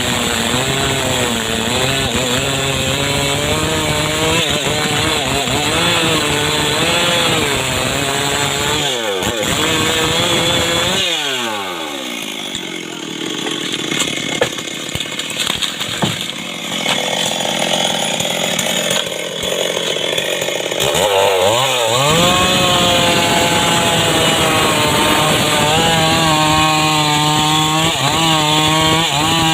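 Homemade chainsaw cutting mahogany wood, the engine's pitch wavering under load. About ten seconds in the revs fall away and the engine runs quieter for some ten seconds, then it revs up again and goes back to cutting.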